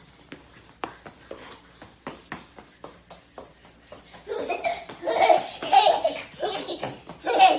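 Scattered light clicks and taps, then from about four seconds in, loud bursts of hearty laughter that break off and resume several times.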